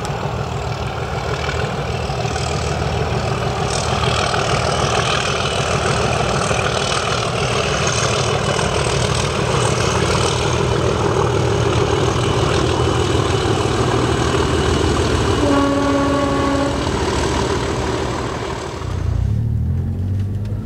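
Heavy diesel locomotive engine running loudly, with a single horn note a little over a second long about two-thirds of the way through. Near the end it gives way to the steadier hum of a car driving along.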